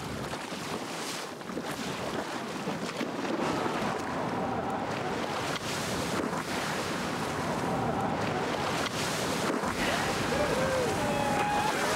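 Wind buffeting the microphone over the rush and splash of sea water against a sailing canoe's hull as it drives through choppy waves.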